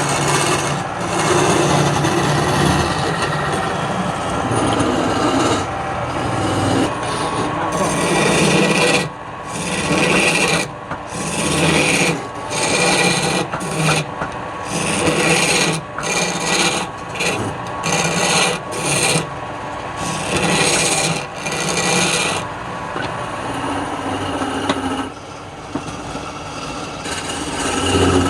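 Wood lathe running with the spinning wood being worked against: a steady rasping scrape, which from about nine seconds in breaks into short passes separated by brief gaps.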